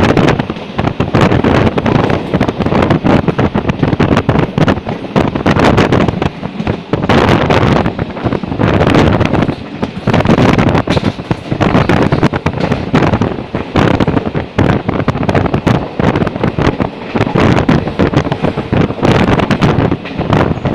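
Loud wind buffeting a microphone held at the open window of a moving train, crackling and fluttering irregularly over the train's running noise.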